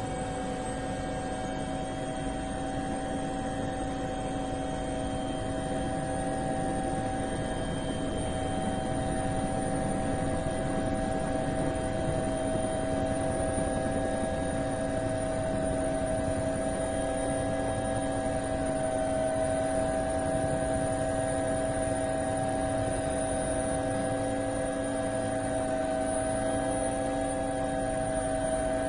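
DJI Phantom quadcopter's motors and propellers whining steadily, picked up by the camera riding on the drone, several steady tones with only a slight drift in pitch.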